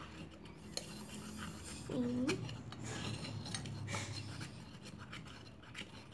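Spoon stirring a sticky mix of glue and liquid soap slowly in a small stainless-steel pot: soft scraping and rubbing with light ticks against the metal.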